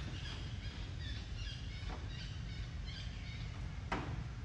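Small birds chirping in short, high notes over a steady low rumble, with a sharp click about four seconds in.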